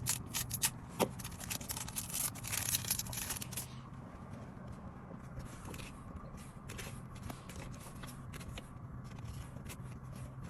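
A foil Pokémon card booster pack being torn open and crinkled, a dense crackling for the first three or four seconds, followed by sparser soft clicks and slides of the cards being handled.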